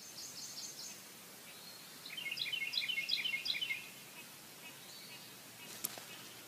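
Bird chirping: a quick run of short, high, repeated notes between about two and four seconds in, over faint outdoor hiss, with one sharp click near the end.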